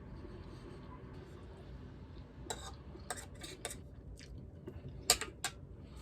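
Cutlery clinking and scraping against a plate while eating: a few sharp clinks from about two and a half seconds in, the loudest two near the end.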